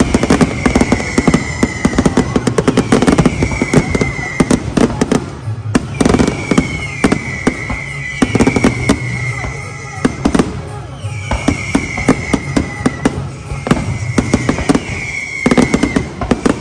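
Fireworks display with many shells launching and bursting at once: a dense run of bangs and crackling that never lets up.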